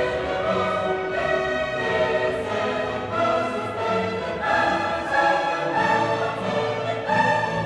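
Orchestral background music with a choir, held chords shifting slowly.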